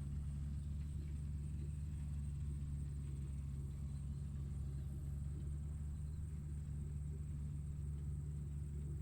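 Tractor engine running at a steady speed: an even, low drone with no change in pace.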